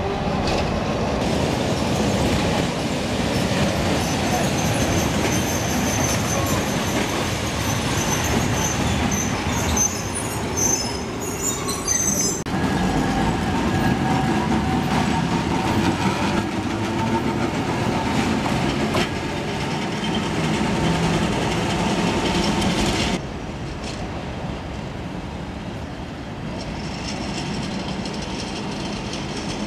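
Electric tram running past close by: a steady rumble and clatter of steel wheels on rail, with high-pitched wheel squeal through the first half. After a cut about two-thirds of the way in, a quieter tram running.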